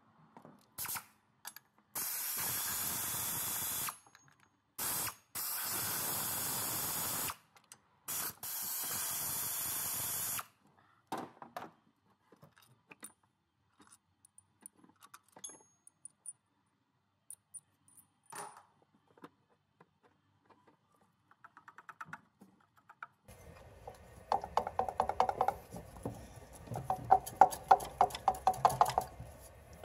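Pneumatic air ratchet running in three bursts of about two seconds each, undoing bolts. Between and after the bursts come small metallic clinks of loose bolts and tools, and near the end a run of rapid clicking.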